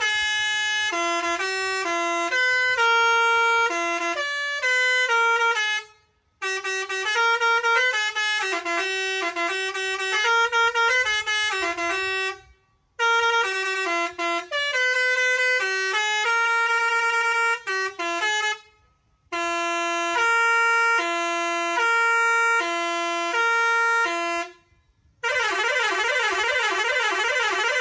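Electronic musical truck horn playing its preset tunes one after another: four short melodies, each followed by a brief silence, then a fast warbling siren-like tone near the end.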